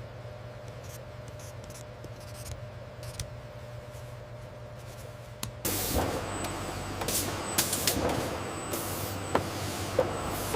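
Machinery hum, then about halfway in a sudden louder run of mechanical clicks, knocks and hissing, typical of a production line working.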